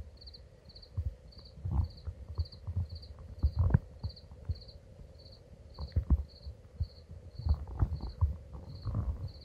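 A cricket chirping steadily, about two short high chirps a second. Irregular low thumps and knocks close to the microphone are louder, around three and a half seconds in and again from about six seconds on.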